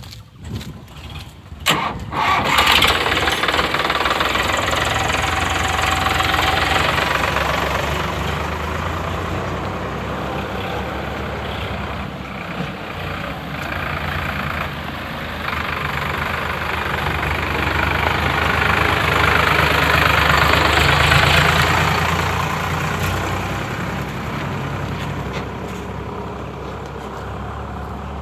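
A tractor's diesel engine starts about two seconds in, after a few knocks, and keeps running loudly. It swells for a while past the middle and then eases off.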